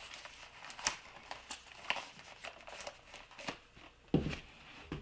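Handling noise from a pair of Howard Leight Impact Sport electronic earmuffs turned over in the hands: a string of small plastic clicks and rustles, then a dull thump about four seconds in.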